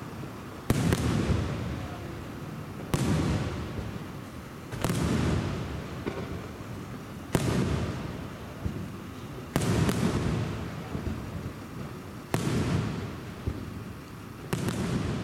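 Aerial firework shells bursting in the sky one after another, about seven sharp bangs spaced roughly two seconds apart, each trailing off in a long fading rumble.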